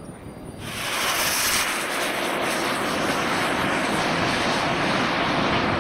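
JetsMunt M210 model jet turbine of a 1/5-scale Rafale at takeoff power: its noise rises sharply about half a second in, then runs steady and loud as the jet rolls and climbs out.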